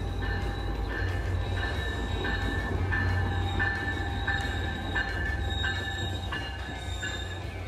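Tri-Rail bilevel commuter train pulling into the station: a low rumble of the train rolling in, with a ringing tone struck evenly about every two-thirds of a second, the train's bell sounding as it arrives.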